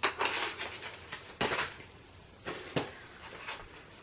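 Handling of small makeup products and their packaging: a few short rustles and light clicks and knocks as items are picked up and set down.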